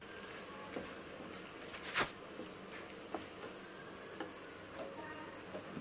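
Masala macaroni sizzling gently in a nonstick frying pan as a wooden spatula stirs it, with scattered light knocks and scrapes of the spatula on the pan; the sharpest knock comes about two seconds in.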